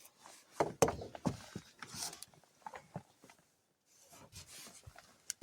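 A large cardboard shipping box being handled, giving scattered light knocks, taps and rubbing.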